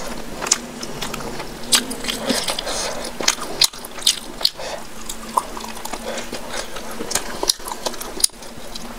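Close-miked wet squishing of a hand mixing curry-soaked rice, with irregular sharp wet clicks and smacks, and wet chewing sounds.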